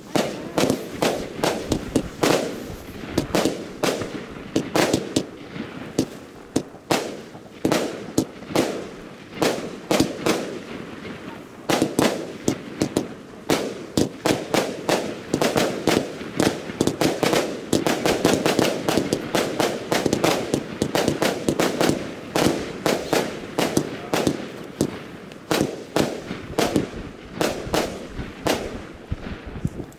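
Two Argento Azzurro firework cakes firing together: a rapid, continuous string of shots and bursts, several a second, that dies out just before the end.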